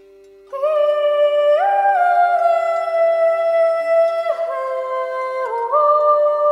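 Kulning, the Swedish herding call: a woman's high, clear voice holding long notes, starting about half a second in, stepping up once, then down twice and back up near the end. Under it runs a steady low drone.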